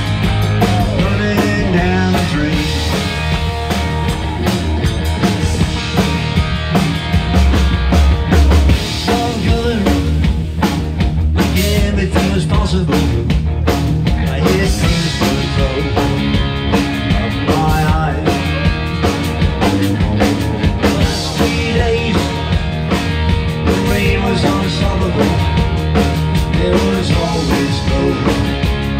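Live rock trio playing: electric guitar, electric bass and a Tama drum kit, loud and continuous with a driving beat.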